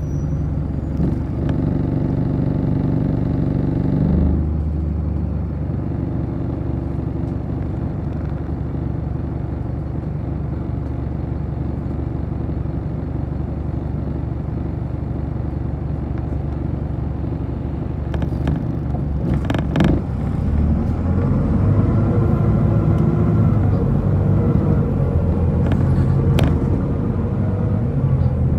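City bus engine heard from inside the cabin, idling while the bus stands, then pulling away about two-thirds of the way through with the engine note rising as it accelerates. A few sharp clunks sound around the time it moves off.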